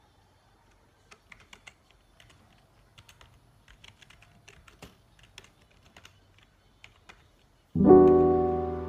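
Fingers typing on a computer keyboard: quick, irregular key clicks. Near the end, loud background music comes in with a sustained chord that slowly fades.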